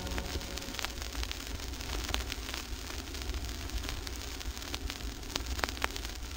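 Vinyl LP surface noise in the blank groove between tracks: a steady hiss with scattered clicks and pops. The last organ chord of the previous song dies away in the first second.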